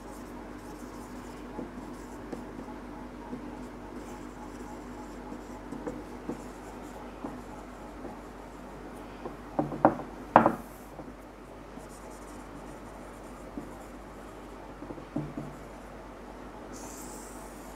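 Marker writing on a whiteboard: soft rubbing strokes as the letters are written, with a couple of sharper knocks about ten seconds in. A steady low hum runs underneath.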